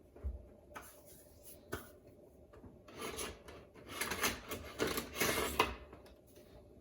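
Cooking utensil scraping and rubbing in a pan of heating sesame oil, a few light knocks at first, then a run of rasping strokes in the middle.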